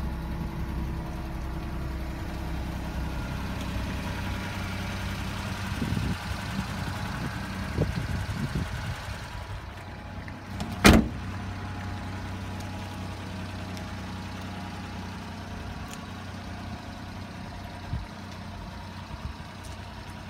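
Daihatsu Hijet truck's small three-cylinder engine idling steadily as a low hum. About halfway through, a cab door slams shut once with a sharp bang, with a few softer knocks before it.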